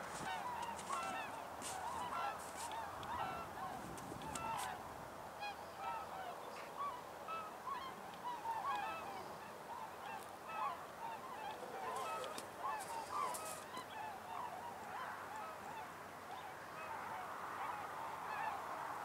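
A flock of geese honking, many overlapping calls throughout.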